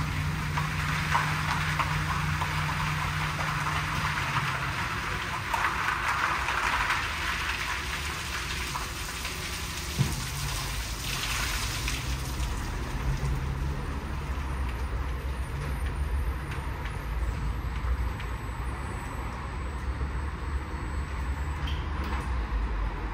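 WashTec SoftCare² rollover car wash gantry at work: water jets spraying in spells, strongest over the first several seconds and again briefly later, over the steady low hum of its pumps and drives, with a single knock about ten seconds in.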